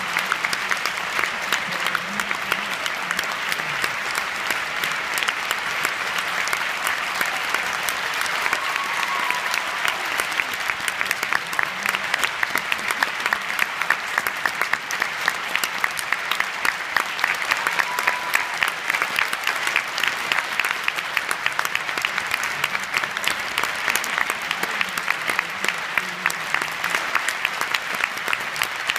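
A large audience applauding: many hands clapping in a dense, steady ovation for the whole stretch.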